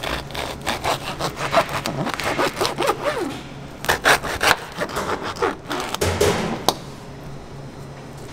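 Serrated bread knife sawing back and forth through a seeded bagel sandwich, a run of rough rasping strokes that stop about seven seconds in.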